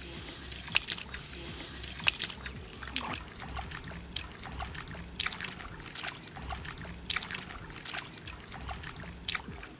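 Feet splashing and sloshing through shallow floodwater and mud, in irregular splashes with water trickling in between.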